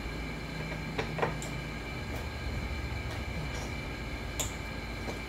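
Steady low background rumble with a faint steady whine, over which small metal parts are handled on a workbench: two light clicks about a second in and one more near the end.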